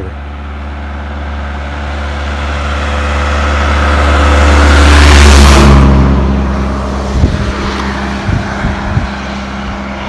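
A motor vehicle's engine driving past close by: it grows steadily louder, is loudest about five and a half seconds in, then drops in pitch and fades, with a few low knocks afterwards.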